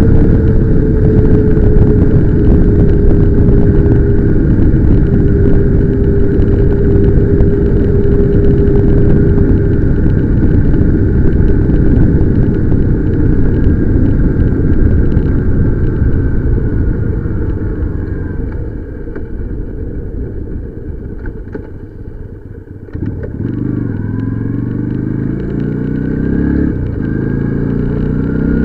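Motorcycle engine heard on board while riding, with wind noise. It cruises at a steady note that slowly sinks, eases off and gets quieter about two-thirds of the way in, then picks up sharply and accelerates, its pitch rising and dropping back several times as it shifts up through the gears.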